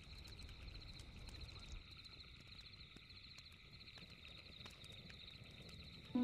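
Faint night ambience of crickets chirping steadily, with occasional soft crackles from a campfire. A note of music starts right at the end.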